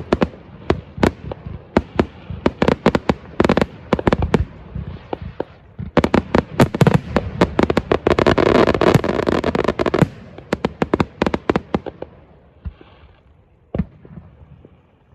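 Fireworks going off: many sharp bangs and crackles, building to a dense barrage partway through, then thinning out to a few scattered bangs near the end.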